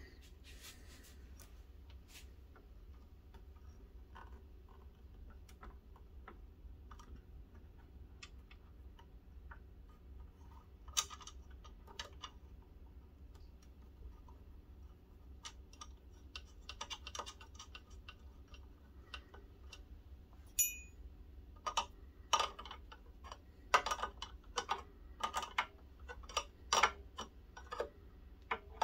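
Small clicks and taps of fingers and an open-end wrench on the metal hydraulic hose fittings of a model excavator's boom cylinders. The clicks are scattered at first and come thick and fast, louder, in the last several seconds as the wrench works a fitting.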